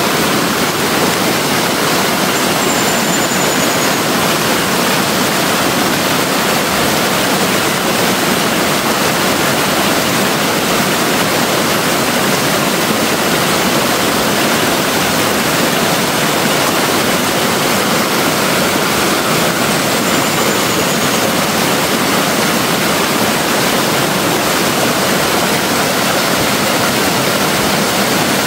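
Steady rush of a fast-flowing forest stream, an even, unbroken sound of running water.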